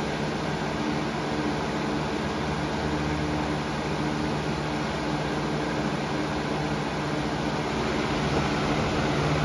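Weather Shield box fan running on high speed: a steady rush of moving air with a low, even hum, reading about 71 to 72 decibels close to the fan.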